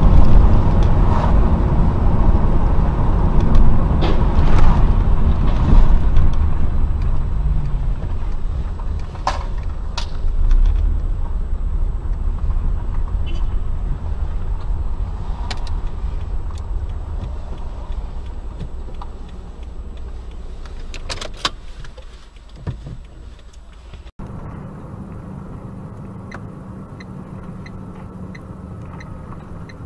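Car interior road noise picked up by a dashcam: a low engine and tyre rumble that slowly fades, with a few sharp knocks. About two-thirds of the way through it cuts abruptly to a quieter, steady hum from another dashcam.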